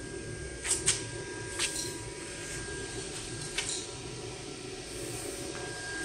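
Steady low machine hum with a faint high whine, broken by a few sharp clicks: two close together about a second in, another shortly after, and one more a little past halfway. The industrial sewing machine stands idle and is not stitching.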